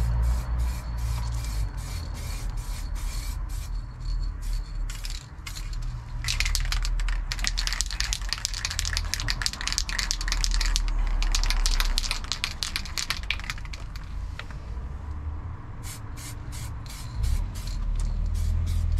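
Paint spraying in a continuous hiss for about seven seconds, starting about six seconds in, over background music with a steady beat.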